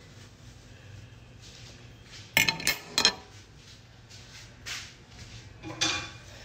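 Kitchen clatter: a quick cluster of sharp clinks and knocks of kitchenware about two and a half seconds in, then two more single knocks near the end, over a low steady hum.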